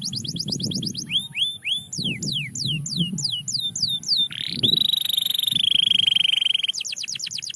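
Domestic canary singing: fast trills of repeated down-slurred whistled notes, changing to a new note type every second or so. About four and a half seconds in, a rising note leads into a rapid buzzy rolling trill that lasts about two seconds, followed by another fast trill.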